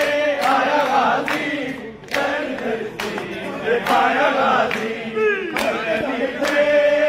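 A crowd of men chanting a devotional song together in unison, with sharp hand claps landing in time with the chant.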